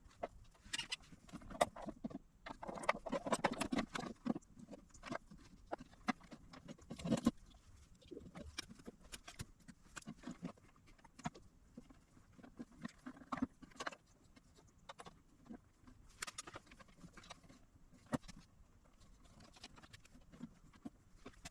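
Irregular clicks, taps and short scrapes of hands, tools and parts being handled while working on the unit's case, busiest in the first seven seconds and sparser afterwards.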